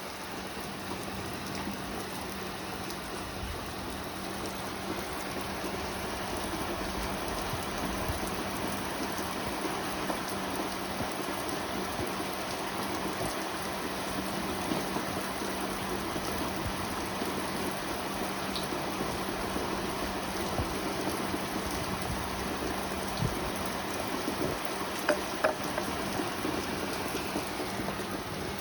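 Rain pouring steadily, with a few sharper drips near the end.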